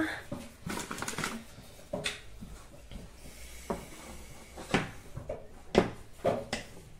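Hands kneading sticky bread dough on a floured countertop, with scattered soft knocks and a few sharper knocks of kitchenware near the end.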